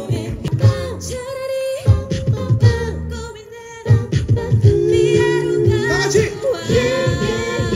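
A cappella group of mixed voices singing over a beatboxed rhythm. After a short lull a little over three seconds in, one song ends and the next begins.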